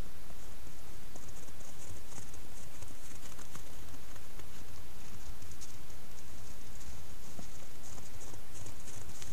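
Grey wolf's footsteps crunching and pattering on fresh snow in irregular clusters of short, crisp crackles that grow denser near the end, over the camera trap microphone's steady hiss and low hum.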